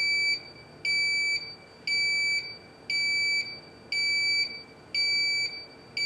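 Lubecore in-dash test switch's electronic alarm beeping, a high-pitched tone about half a second long repeated about once a second. It is the low-level alarm, signalling that the grease pump's reservoir is low on lubricant.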